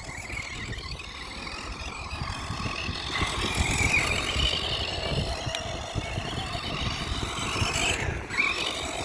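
Electric RC car's motor whining steadily as the car drives in circles doing donuts, over a low rumble; the whine grows louder about three seconds in.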